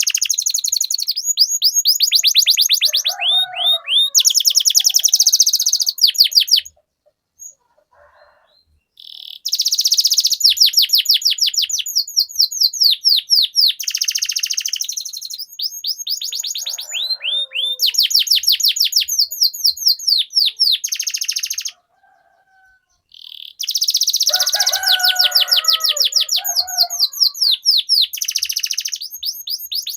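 Domestic canary singing long rolling trills, fast runs of repeated falling notes, broken by two short pauses about seven and twenty-two seconds in, with lower warbled phrases mixed in.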